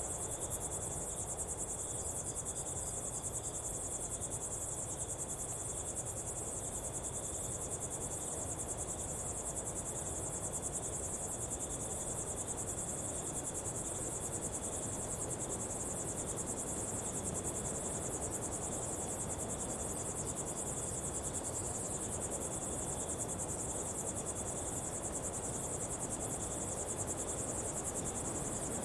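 Kalahari desert daytime ambience: a steady, dense chorus of insects, high-pitched and unbroken, with a thinner lower insect tone beneath it and a soft low background hiss.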